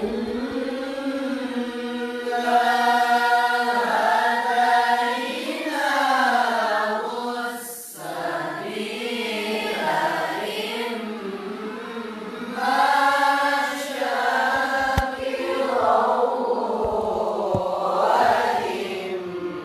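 A class of students reciting the Quran together in the melodic mujawwad style, many voices holding long notes that rise and fall in unison, phrase by phrase.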